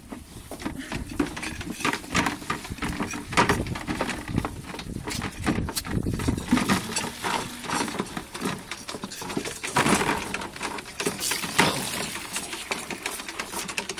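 Irregular knocks and clatter of calves jostling at plastic feeding buckets along a metal fence, with milk running from a dispenser gun's nozzle into a plastic bucket.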